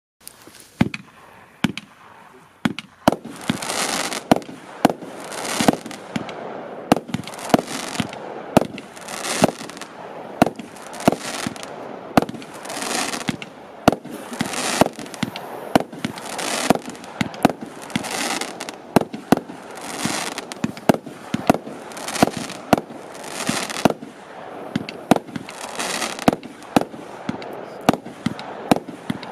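A 61-shot 20 mm consumer firework battery firing shot after shot, beginning suddenly: sharp launch and burst reports about twice a second, and about once a second a shell's crackling cloud hissing for under a second.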